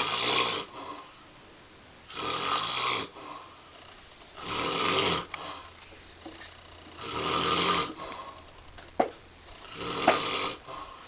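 A person snoring in sleep, one harsh, noisy snore about every two and a half seconds, five in the stretch, with quieter breathing gaps between. Two short sharp clicks come near the end.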